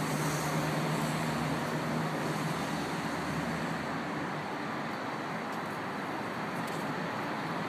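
Steady city street traffic noise, with a low hum that fades out about two and a half seconds in.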